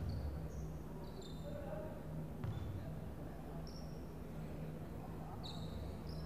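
Basketball shoes squeaking on a hardwood court, a few short squeaks, over a low steady hum, with a single thud about two and a half seconds in.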